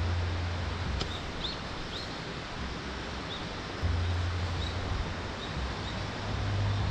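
Outdoor ambience: a steady hiss under a low rumble that swells at the start and again about four seconds in, with faint short bird chirps every second or so.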